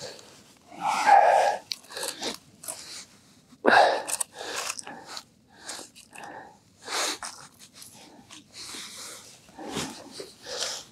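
Short, irregular crunches and scrapes of slush and ice at an ice-fishing hole as a pike tip-up is handled and reset in it.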